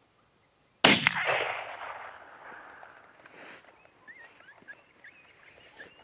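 A single gunshot at a coyote, about a second in: a sharp crack followed by a long rolling echo that fades over about two seconds.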